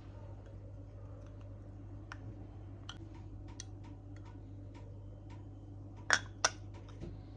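Scattered light clicks and taps over a steady low hum, with two louder, sharper clicks close together about six seconds in.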